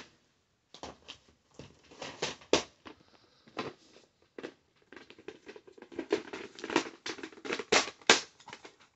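Plastic VHS clamshell cases being handled and one opened: an irregular run of sharp clicks and clattering knocks, busiest and loudest near the end.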